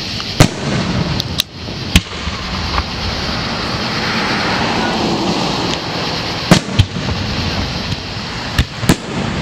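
Aerial firework shells bursting with sharp bangs: three in the first two seconds, a lull, then two quick pairs of bangs in the second half, over a steady background of noise.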